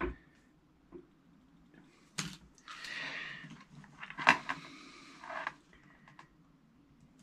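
Light handling noises while a small circuit board is desoldered with a soldering iron: scattered small clicks and taps, the sharpest about four seconds in, with a couple of brief soft hissing rustles between them.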